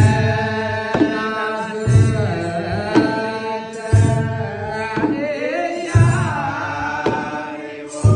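Group liturgical chanting by Orthodox Tewahedo clergy, men's voices singing together over a kebero drum struck about once a second in a slow, steady beat.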